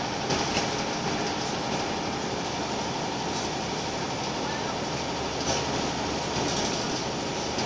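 Interior noise of a Scania L94UB Wright Solar single-deck bus under way: its 9-litre five-cylinder diesel running steadily with road noise, a faint steady whine and a few light rattles.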